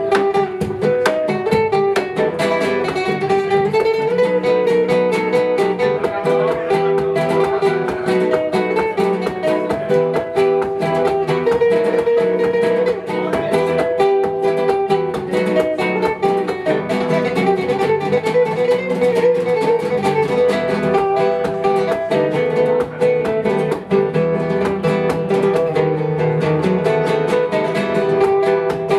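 Live instrumental music from a duo: acoustic guitar picking quick notes under a held melody line.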